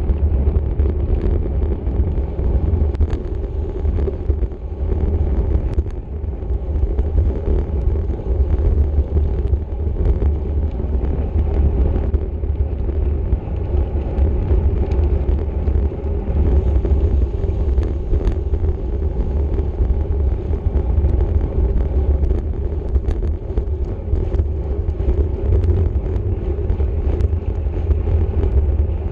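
Wind buffeting the microphone of a racing cyclist's camera at speed: a steady low rumble with tyre and road noise under it, and occasional faint clicks.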